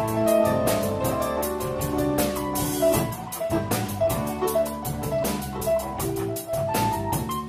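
Live rock-blues band playing an instrumental passage: a drum kit keeping a steady beat under electric guitar and held keyboard notes.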